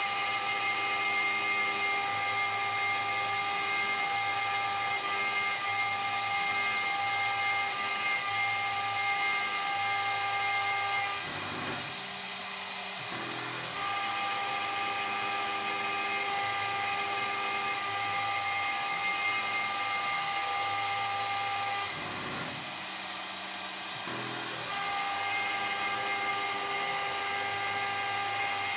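CNC router spindle engraving acrylic, giving a steady high-pitched whine of several tones. The whine drops away twice for a few seconds each time, about a third and about two thirds of the way through, then comes back.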